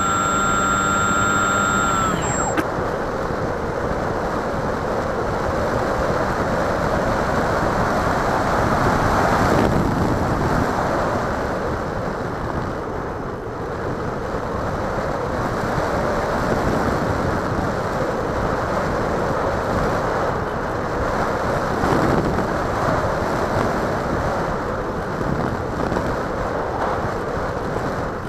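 A model plane's motor whines at a steady pitch, then cuts off about two seconds in. After that, air rushes over the plane's onboard microphone as it glides down, swelling and easing.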